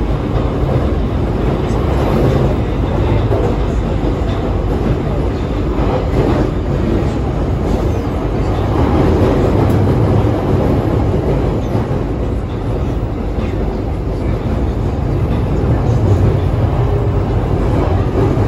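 Beijing Subway Line 2 train running between stations, heard from inside the passenger car: a steady, loud rumble of wheels on rail and running gear that swells and eases a little.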